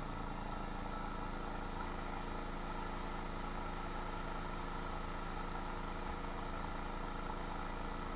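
Small airbrush compressor running with a steady, even hum.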